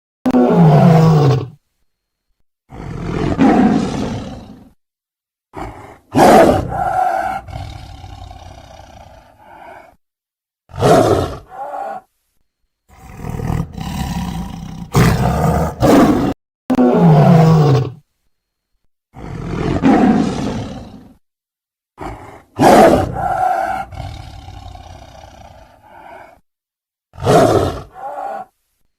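Big cat roaring: a string of separate loud roars and growls with abrupt silent gaps between them. The same run of roars repeats about halfway through.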